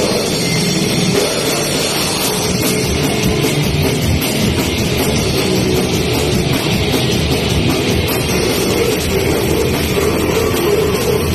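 Live death metal band playing, with distorted guitars and a drum kit in a loud, dense, unbroken wall of sound.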